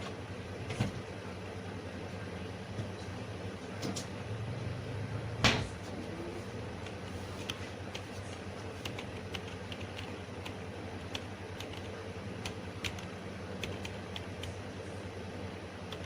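Scattered clicks and taps of a computer keyboard and mouse over a steady electrical hum, with one louder sharp knock about five and a half seconds in.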